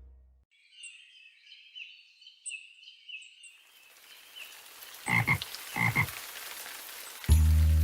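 A run of short, rattling chirping calls for about three seconds, then a steady hiss with two short, louder sounds about a second apart, then music starts near the end.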